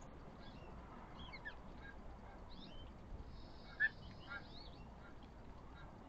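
Songbirds at a feeder giving short, scattered chirps and call notes, with one brief louder call a little under four seconds in.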